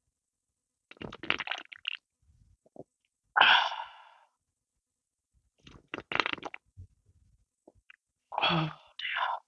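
A person gulping a sparkling passion fruit drink straight from an aluminium can, in three runs of quick swallowing clicks, with loud breathy exhales between and after the sips, the loudest about three and a half seconds in.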